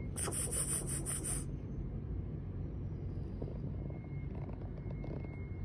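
A rubbing scrape lasting about a second near the start, then faint steady low background noise.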